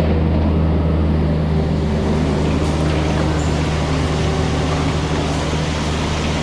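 Concrete mixer truck's diesel engine running steadily with a deep, even drone.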